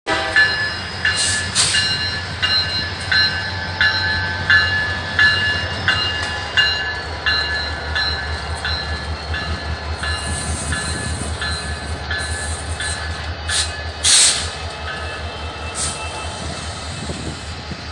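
Two BNSF diesel locomotives, an SD39-2 and a GP60M, running slowly past with a steady low engine drone. A bell rings in an even rhythm about once every 0.7 seconds and fades out after about twelve seconds. A few short sharp noises cut through, the loudest about fourteen seconds in.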